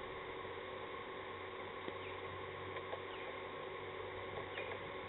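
Quiet outdoor ambience at a cricket ground: a steady low hum and background noise, with a few faint, short, falling chirps and an odd tiny click.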